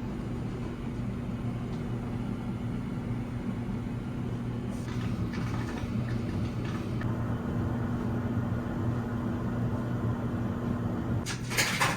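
Samsung FlexWash washing machine running just after its cycle is started: a steady low hum, with a stretch of hissing about five seconds in. Near the end a cluster of sharp, scratchy sounds breaks in.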